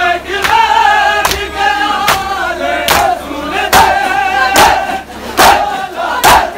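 Crowd of men chanting a noha together, marked by loud unison chest-beating (matam): sharp group strikes at a steady beat, a little more than one a second.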